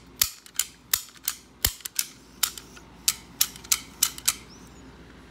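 Antique rim lock's privacy slide being thumbed back and forth over and over, snapping into place with sharp metallic clicks, about three a second at an uneven pace. It is being tested to see that it now stays put and no longer jumps out after its bend was restored.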